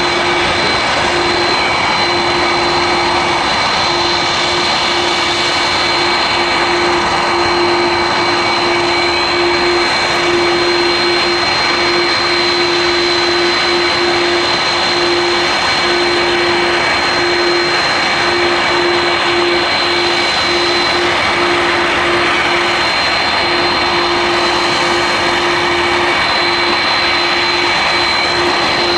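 Airbus A330-200 MRTT tanker's twin General Electric CF6 turbofans at taxi power: a loud, steady rush with a high, level whine.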